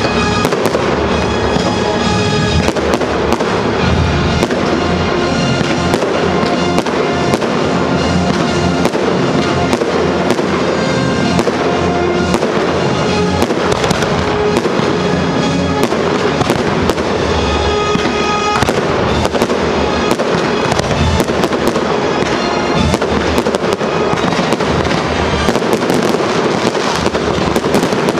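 Fireworks crackling and bursting in quick, dense succession over loud music.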